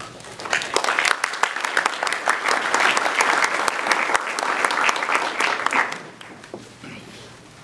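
Audience applauding, starting about half a second in and dying away after about six seconds.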